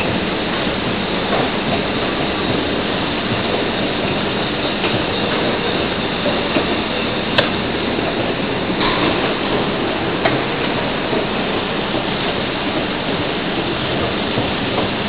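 OTIS escalator running: a steady rumble of the moving steps with light clicking, and one sharp click about halfway through.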